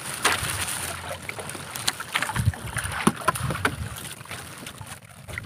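Wet gill net laden with sea urchins being hauled up over a small boat's gunwale: water splashing and dripping off the mesh, with many small irregular taps and knocks.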